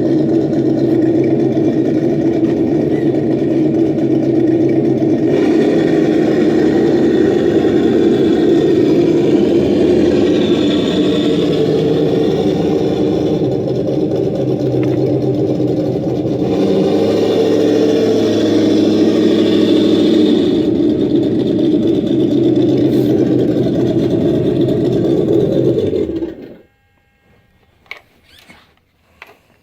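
Simulated engine sound from the ESS Plus sound module in a Traxxas TRX-4 RC crawler, running steadily and brightening in tone twice as if revved, then cutting off suddenly a few seconds before the end.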